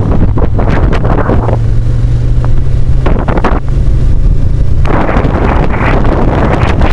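Ducati motorcycle engine running at a steady note on the move, under heavy wind buffeting on the microphone. The wind noise drops away twice for a second or so, leaving the engine note clear and slightly higher.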